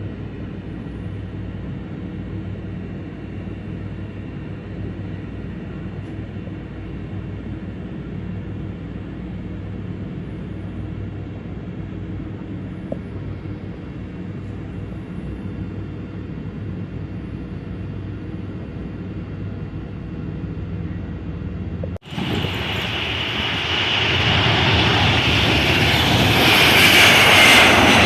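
Airliner engines running with a steady low drone for most of the clip. After an abrupt cut about 22 seconds in, a much louder, hissing engine noise builds up, with a high whine that falls in pitch near the end.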